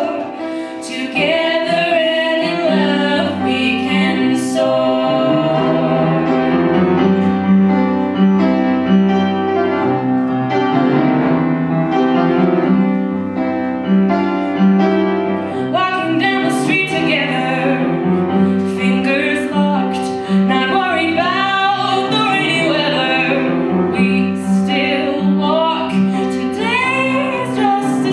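Two women singing an original song together with piano accompaniment.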